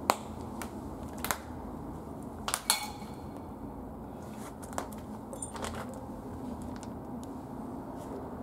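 Footsteps crunching on a debris-strewn floor: a few sharp clicks and crunches, bunched in the first three seconds with a few softer ones around five seconds in, over a faint steady hum.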